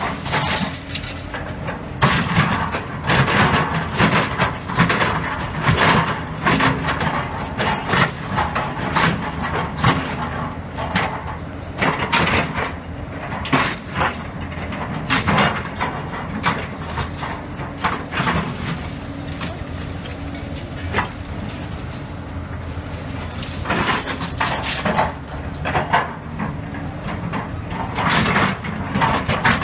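Excavator running steadily under repeated, irregular crashes and cracks of concrete rubble and steel rebar as the bucket digs through demolition debris, with a quieter spell in the middle.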